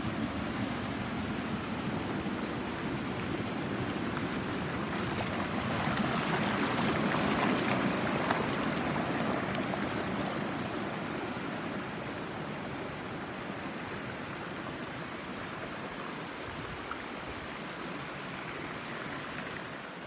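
Waterfall water pouring and rushing over rock, a steady rushing noise that swells a little in the middle and eases off in the second half.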